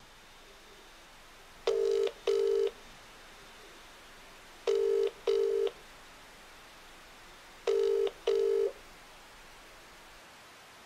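A telephone ringing with the British double-ring cadence: three double rings, each a pair of short steady tones, about three seconds apart, over a faint hiss.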